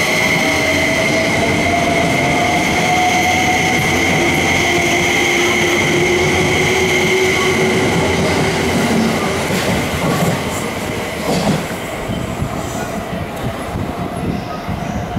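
E261 series electric multiple unit pulling away, its traction motors whining in steady tones that slowly rise in pitch as it gathers speed over the rumble of its wheels. After about ten seconds the whine fades as the train draws away, leaving a few wheel clacks and a fainter rumble.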